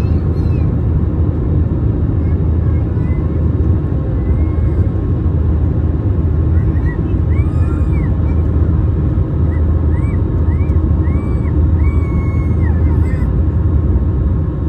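Steady low roar inside an Airbus A321-200's cabin in flight: the jet engines and airflow heard from a window seat during the climb-out. Faint voices rise and fall in the background now and then.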